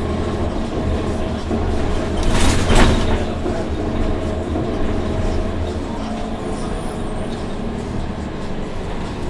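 Orion VII NG CNG bus with a Cummins ISL-G natural-gas engine running while riding, a steady low drone that grows weaker about six seconds in. A brief loud burst of hiss about two and a half seconds in.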